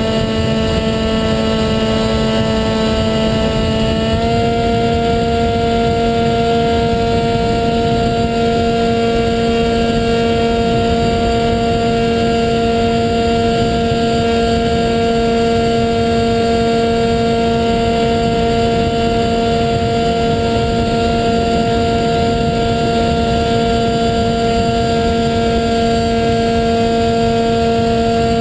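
HK Bixler model plane's electric motor and pusher propeller running at a steady throttle, a constant droning whine with wind rush over the plane, the pitch stepping up slightly about four seconds in.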